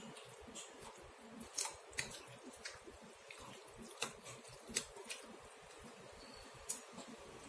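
Chopsticks and a ceramic soup spoon knocking against a ceramic bowl while stirring noodles in broth: a handful of scattered sharp clicks over a faint steady hiss.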